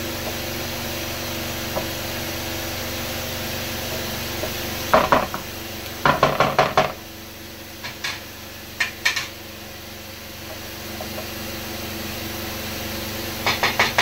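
Pan of chicken macaroni sizzling steadily on a gas stove, broken by clusters of quick, sharp clicks and knocks near the middle and again near the end. The steady sizzle drops a little about halfway through.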